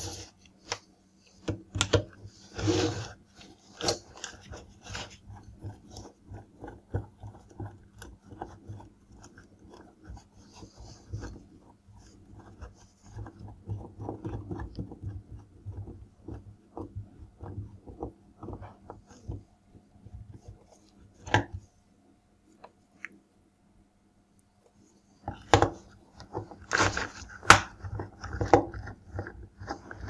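Small clicks, knocks and scrapes of hands handling wires and a plastic magnetic contactor, with a screwdriver working its terminal screws. A louder run of clicks and knocks comes near the end, after a short pause.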